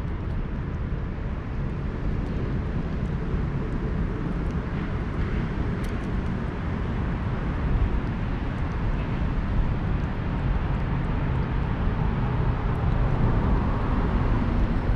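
Steady low rumble of outdoor background noise, with a few faint ticks above it.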